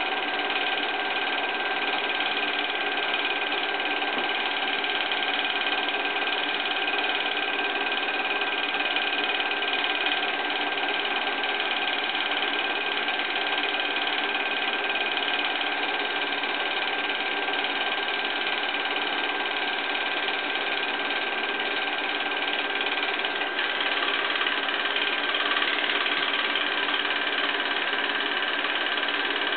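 Home-movie film projector running steadily, its motor whirring and its film mechanism clattering, with a slight change in tone about three-quarters of the way through.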